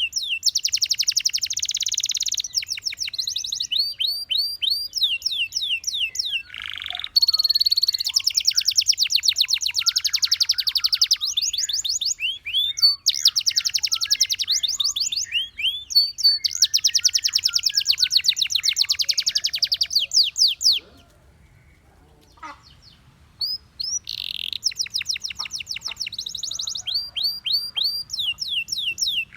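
Domestic canary singing: long fast trills of rapidly repeated sweeping notes alternating with denser rolls. The song stops for about three seconds about two-thirds of the way through, then resumes.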